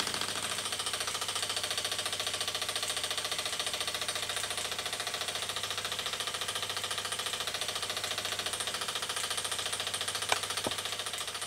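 Märklin toy single-cylinder 'donkey' steam engine running under steam with a fast, even beat, its exhaust venting from a pipe at the bottom rather than up the chimney. Two short clicks come about ten seconds in.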